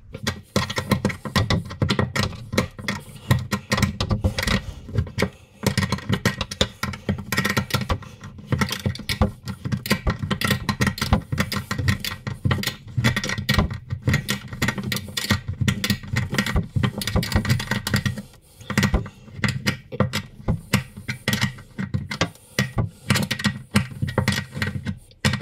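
Worktop connector bolt being tightened with a 10 mm open spanner: quick, irregular metal clicks and rattles as the spanner is worked round and refitted on the nut, with a short pause a little past the middle.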